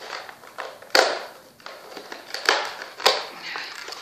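Lip gloss kit packaging being pried and worked open by hand, struggling fingernails catching on it: a run of crackles and sharp clicks, with three louder cracks spread through the middle of it.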